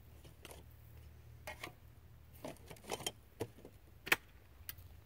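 A string of light metallic clicks and clacks from handling a Baikal double-barrel 12-gauge shotgun while it is readied for one more round. The loudest clack comes about four seconds in.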